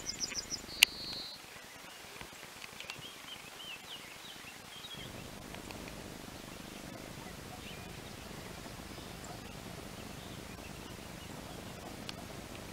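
Yellowhammer song: a quick run of about seven high repeated notes ending in one drawn-out lower note, with a sharp click just after it. Faint short chirps follow for a few seconds, then a steady hiss of background noise.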